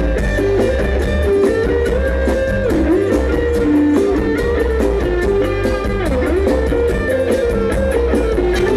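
Instrumental band music: a plucked-string lead melody over steady bass and a regular drum-kit beat.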